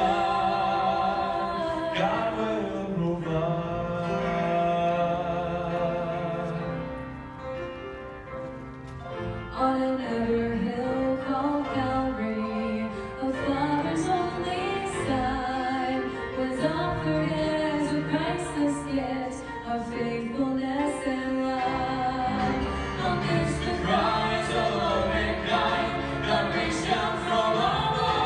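A man and a woman singing a gospel song as a duet over instrumental accompaniment, the voices held with vibrato. The music drops quieter about seven seconds in, then swells back up.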